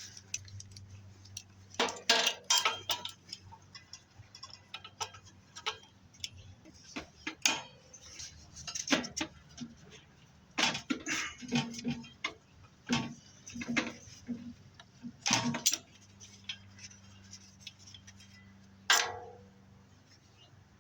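Hand tools clinking and clicking against the metal of a furnace blower motor while the nut on its shaft is worked loose: irregular sharp metallic clinks, some in quick clusters, over a faint steady hum.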